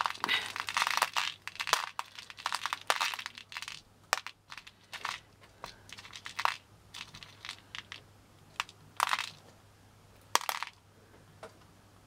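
Loose pearl beads clicking and rattling against one another in a tray as a strung necklace is pulled apart and its pearls drop among the pile. A dense patter for the first few seconds, then scattered single clicks and a few short rattles.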